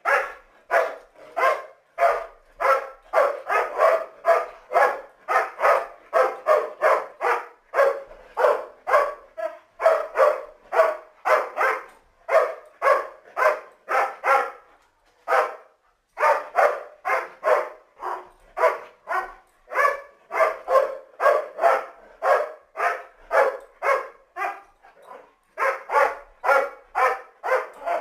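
A dog barking over and over in quick succession, about two to three barks a second, with a short pause about halfway through.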